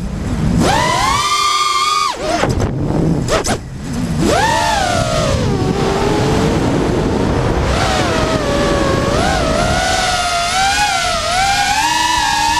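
The brushless motors and propellers of an LS210 FPV racing quadcopter whine, heard through its onboard camera. The pitch rises and falls with the throttle: it drops out briefly about two seconds in, surges about four seconds in, then climbs slowly toward the end.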